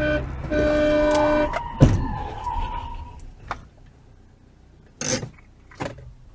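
Car horn sounding, a brief blast then a longer steady one, followed by a single loud thud about two seconds in. A few short knocks and clicks follow as things go quiet.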